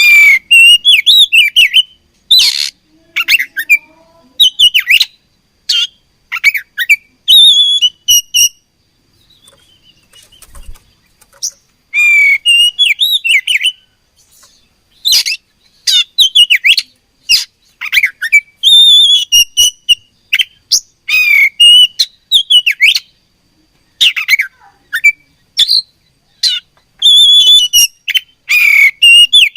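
Oriental magpie-robin singing in rapid runs of loud, sharp chirps and whistled phrases. The song breaks off for about three seconds roughly a third of the way in, then resumes.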